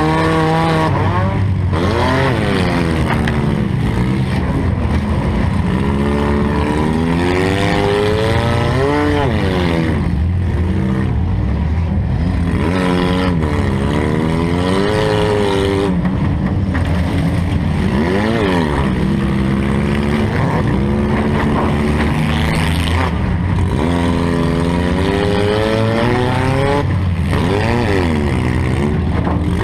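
A demolition derby car's engine, heard from the car's own in-car camera, revving hard and easing off over and over, its pitch rising and falling every couple of seconds over a loud, steady rumble.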